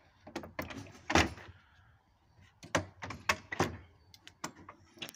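Railway ground frame levers being worked by hand: a series of metal clunks and clicks as the lever catches release and the levers move over in the frame, the loudest a little over a second in and a quicker cluster about three seconds in.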